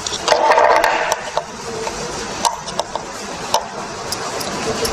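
A screwdriver works a screw on a sewing machine's metal shuttle hook assembly. There is a burst of scraping about half a second in, then scattered metal clicks and taps over a steady background noise.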